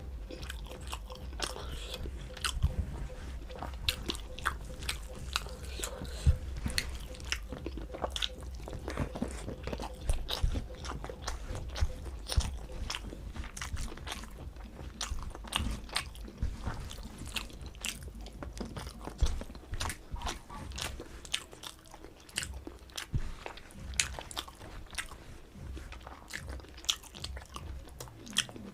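A person chewing and biting food close to the microphone: a run of short, irregular crunchy clicks and mouth smacks, with a steady low hum underneath.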